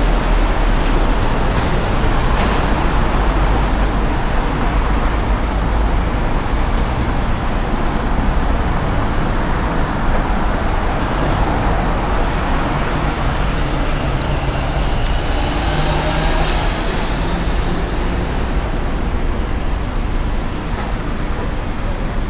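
Steady road traffic noise from passing vehicles: a continuous low rumble with no breaks.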